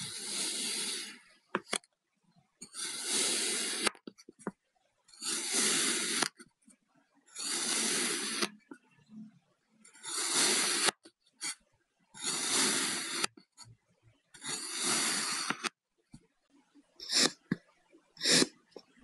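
Kinetic sand being cut, seven slow slices each giving a grainy hiss about a second long, roughly two seconds apart, then about four short, quick cuts near the end.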